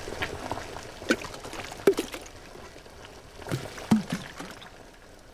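Tin cans lowered into a large metal stockpot of hot water, knocking against the pot and each other about five times over a watery bubbling that fades near the end.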